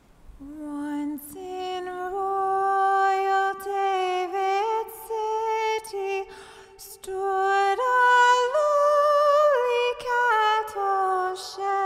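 A solo female voice singing a slow carol melody unaccompanied, in long held notes with short breaths between phrases.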